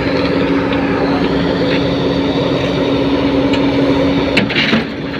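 Heavy machinery's diesel engine running steadily, with a constant hum. A sharp click about four and a half seconds in.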